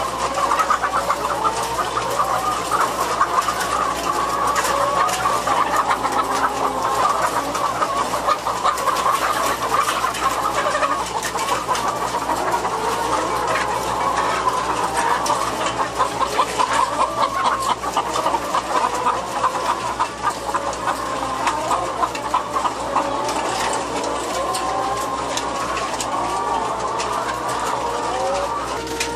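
Many caged laying hens clucking and calling over one another in a continuous dense chatter, with a steady low hum underneath.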